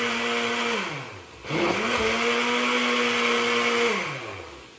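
Blender motor run in pulses while blending a smoothie: it runs at a steady pitch, is switched off about a second in and winds down, starts again and runs for a couple of seconds, then winds down again near the end.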